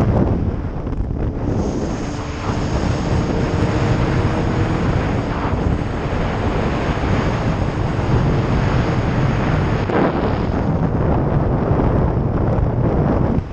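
Heavy wind rush over the microphone of a motorcycle at cruising speed, with the motorcycle's engine running steadily underneath.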